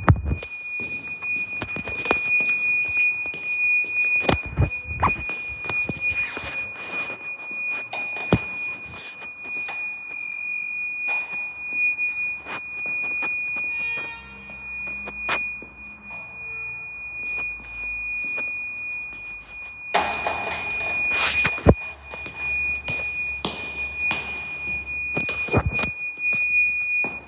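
A steady high-pitched electronic tone, like an alarm or buzzer, sounding without a break. Knocks, clicks and rustling from movement lie over it, with a louder stretch of noise about two-thirds of the way in.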